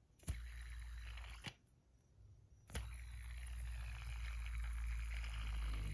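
Titanium Edamame fidget spinner with tungsten buttons flicked into a spin twice, each time with a sharp click. Each spin gives a steady bearing whir with a low hum under it, and each stops abruptly: the first after about a second, the second near the end.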